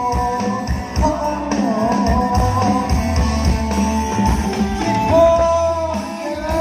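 A band playing a song, with guitar, bass and drum kit under a held melody line.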